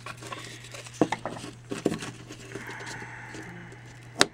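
Small clicks, taps and scrapes of fingers and a knife working the cut yellow outer sleeve off an old axial electrolytic capacitor on a wooden workbench, with a sharp click near the end. A steady low hum runs underneath.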